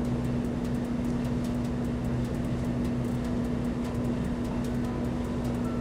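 Steady low hum with a constant hiss of background noise.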